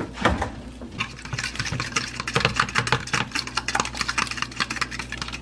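Metal spoon beating eggs in a plastic bowl: a brief knock at the start, then from about a second in a rapid run of light ticks and scrapes of the spoon against the bowl, several a second.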